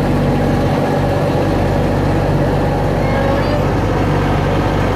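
Engine of the John Deere vehicle towing a farm ride's train cars, running steadily at low speed with an even hum.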